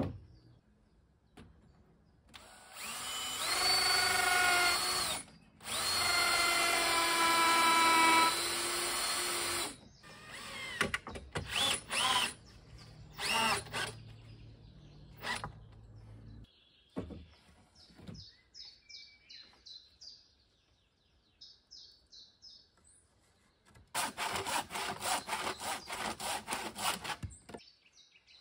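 Cordless drill driving screws into wood: two long runs of the motor spinning up and holding speed under load, then a few short bursts. Near the end comes a quick run of rasping strokes.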